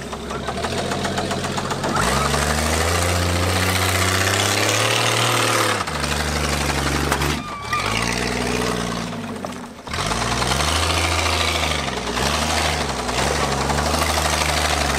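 AMC Eagle's engine revving up and down as the car drives along a rutted dirt trail, its pitch rising and falling several times, with a few abrupt breaks.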